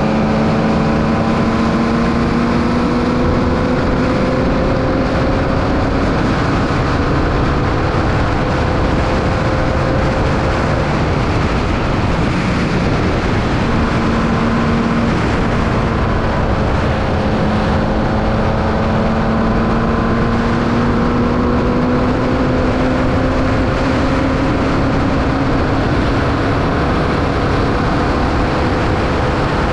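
Onboard sound of a Formula Vee race car's 1200cc Volkswagen air-cooled flat-four engine running hard at racing speed, with a heavy rush of wind and road noise. The engine note climbs slowly for about ten seconds, breaks off around the middle, then climbs slowly again through the second half.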